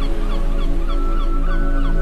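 Calm ambient relaxation music: sustained chords under a quick run of short, repeated chirping notes that fades out, with a long held high note coming in about halfway through.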